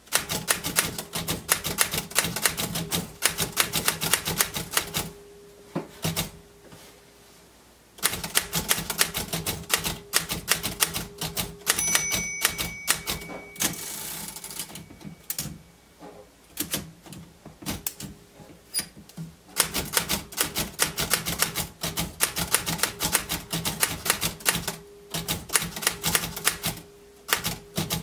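Royal manual typewriter being typed on: fast runs of keystrokes with typebars clacking against the platen, in bursts with short pauses. About twelve seconds in, a short bell ring is followed by the carriage being thrown back with the return lever, a brief sliding swish, before typing resumes.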